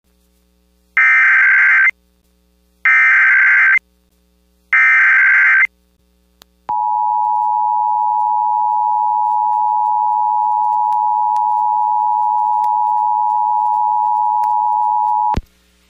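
Emergency Alert System activation for an Amber Alert: three short, screechy bursts of SAME header data about a second apart, then the two-tone EAS attention signal (853 and 960 Hz) held steadily for about nine seconds before cutting off suddenly.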